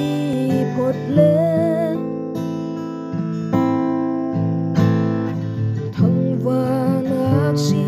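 A song: acoustic guitar with a singing voice.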